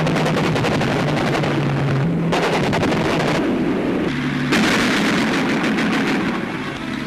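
Rapid automatic cannon fire in long bursts, a dense rattle of shots with a short lull about three and a half seconds in, on an old newsreel soundtrack. It stands for the Hurricane IIC's four 20mm Hispano cannon firing.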